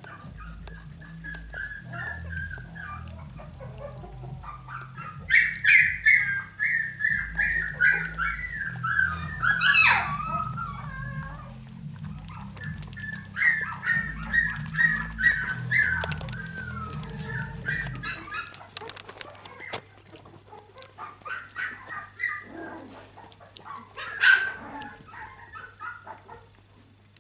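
Young Finnish Lapphund puppies whining and squeaking in high, wavering calls. The calls come in several long runs with short pauses, with sharp squeals near the start of the second run and again near the end.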